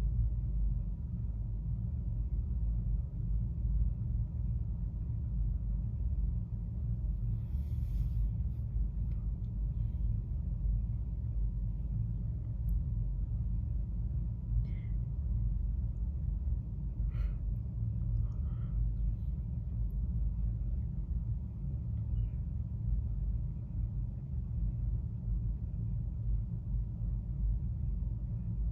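A steady low rumble, like wind on the microphone or distant traffic, with a few faint short high sounds scattered through it.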